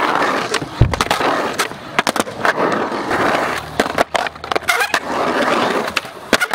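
Skateboard wheels rolling on smooth concrete in long swells, broken by many sharp clacks of the board and trucks hitting the concrete, with a heavy thump about a second in.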